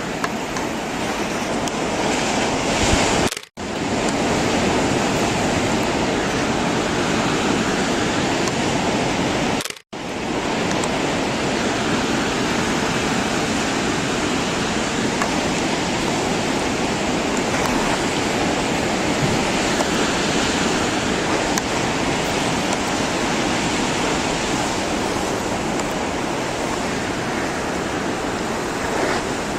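Steady rushing noise, broken twice by a sudden brief dropout, about three and a half and ten seconds in.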